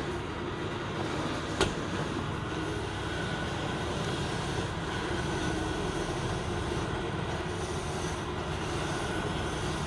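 Steady drone of motor-driven workshop machinery running, with a faint hum under it. One sharp knock comes about a second and a half in.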